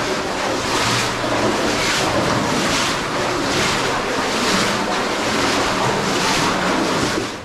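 Water sloshing and splashing in a steady rhythm, a surge roughly every second, as of boots wading through a flooded mine level.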